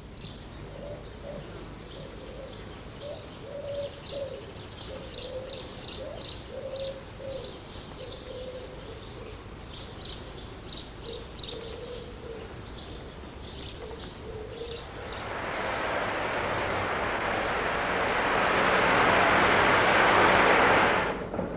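Small birds chirping and a pigeon cooing. About fifteen seconds in, a steady steam hiss from a steam locomotive swells up, grows louder, and cuts off abruptly near the end.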